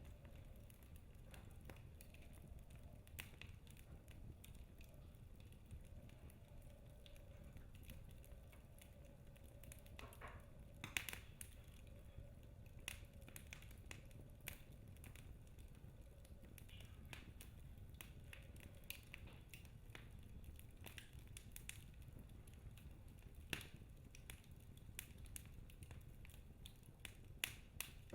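Wood fire in a fireplace crackling quietly: scattered irregular snaps and pops over a low steady rumble, with a louder cluster of pops about eleven seconds in.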